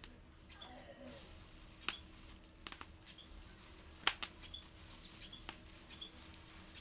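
A handful of sharp clicks and taps, some in quick pairs, over faint short high chirps and a low steady hum.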